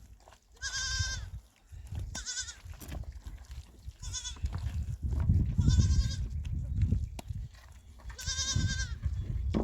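Goats bleating: five short, high-pitched, wavering bleats a second or two apart, over a low rumble.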